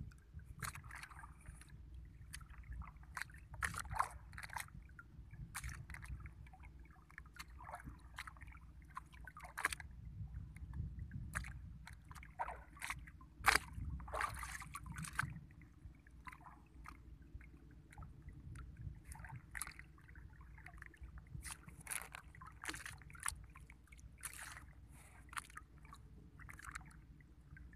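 Water sloshing and lapping around a small boat at sea, with many short scattered splashes and knocks.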